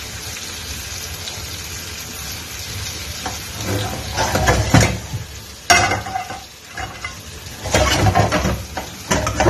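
Chicken pieces and onions sizzling in a non-stick frying pan on a gas burner. From about three and a half seconds in, the pan is shaken and moved over the grate, giving louder bursts of sizzling and pan rattle, with a sharp knock about halfway through.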